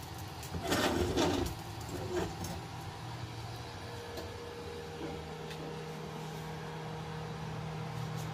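A short rush of noise, then a steady low machine hum that sets in about four seconds in and holds level.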